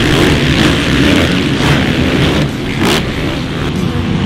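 Several motocross motorcycle engines revving hard as the bikes race around a dirt track.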